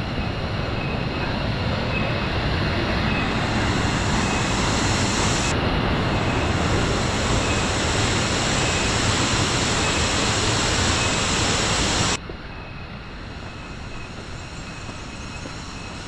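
Waterfall rushing: a loud, steady sound of falling water. About twelve seconds in it cuts off suddenly to a much quieter, even background hiss.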